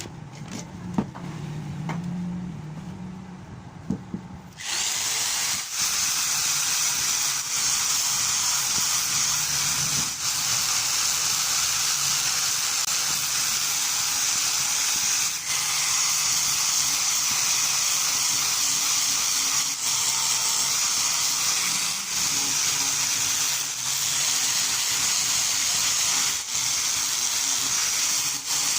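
A few light knocks over a low hum, then an electric power tool starts about four seconds in and runs steadily on the bat's wood, with brief dips every second or two.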